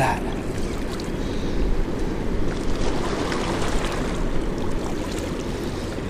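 Steady outdoor rush of river water below a lock and dam, with a low wind rumble on the microphone.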